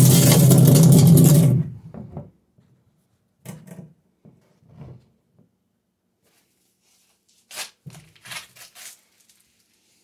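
Handling noise from the filming phone being moved: a loud rubbing against the microphone for about two seconds at the start, then a few shorter scuffs and knocks.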